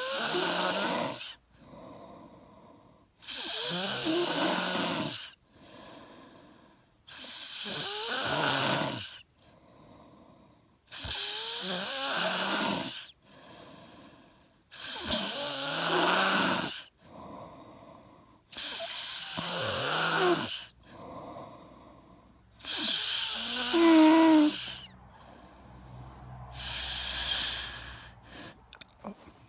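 Steady rhythmic snoring: a loud rattling snore about every four seconds, each lasting about two seconds, with quieter breaths in between. The last snore, near the end, is softer.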